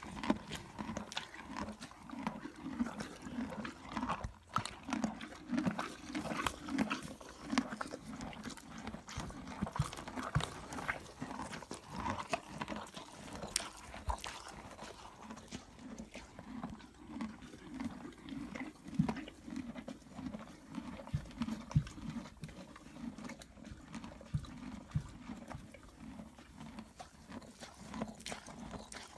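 Horse munching grain from a feed bucket right at the microphone: rhythmic crunching chews with scattered clicks and rustles as its muzzle works in the feed.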